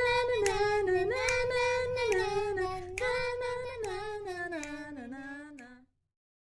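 A child singing a slow tune of held notes that step gradually downward, fading out near the end, followed by a brief dead silence.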